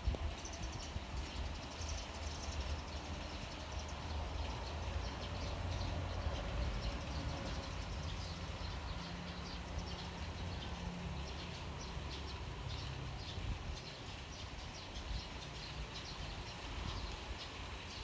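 Outdoor rain ambience: a steady low rumble and soft hiss, with faint bird chirps throughout.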